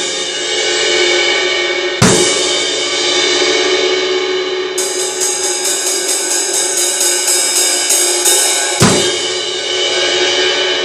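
Vintage Paiste 404 20-inch brown-label ride cymbal, B8 '2002' bronze, played as a crash. It is struck hard about two seconds in and again near the end, each hit ringing out in a long wash. In between, from about halfway, it is hit in a steady pattern of about three strokes a second.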